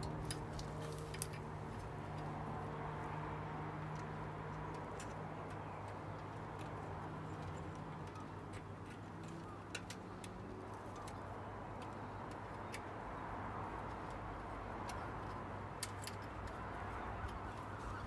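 A few small, scattered metallic clicks as a brake cable is fitted to a bicycle's rear drum-brake hub, over a low steady hum that fades out about halfway through.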